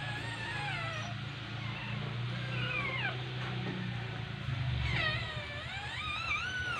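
Newborn border collie puppies crying: several thin, high squeals that rise and fall in pitch, with the longest and loudest in the last two seconds.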